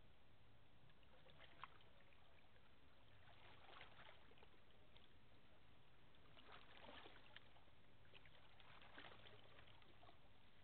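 Near silence: faint outdoor ambience with a low steady hum and a few soft crackles.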